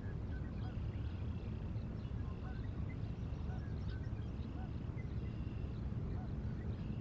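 Steady low outdoor rumble with faint, scattered bird calls over it: short rising chirps and several drawn-out higher calls of about half a second each.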